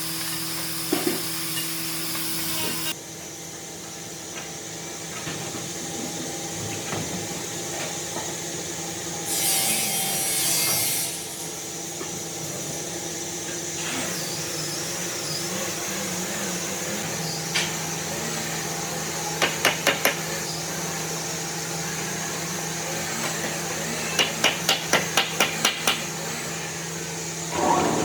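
Hand-tool work on wood over a steady hum: a hiss of about a second and a half near the middle, then runs of quick, sharp taps, about four together two-thirds of the way through and about eight near the end.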